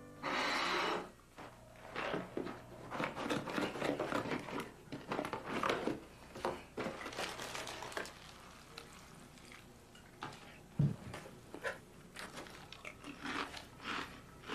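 A cereal box's plastic inner bag being opened, rustled and crinkled in short crackly strokes. Milk is then poured in, and a single low thump follows about three-quarters of the way through as the jug is set down, with more crinkling after it.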